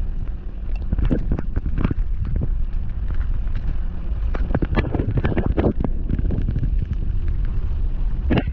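Wind buffeting the camera microphone while riding a bicycle: a steady low rumble with scattered short rattles and clicks.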